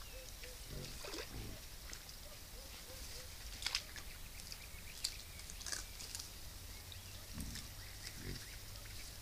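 Wild boar grunting low four times, two about a second in and two near the end, with a few sharp clicks of snapping twigs in between.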